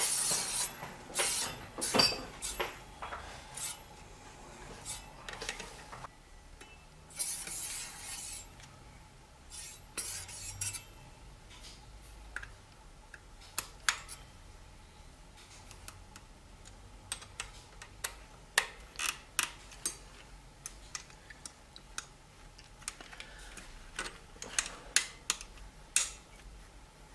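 A spinning bicycle wheel's brake disc rubbing against the pads of its disc brake caliper, giving irregular light metallic ticks and a few short scrapes. Tool clicks come from the caliper as the pads are adjusted. The rubbing is the sign of a pad set too close to the disc, which the mechanic is backing off.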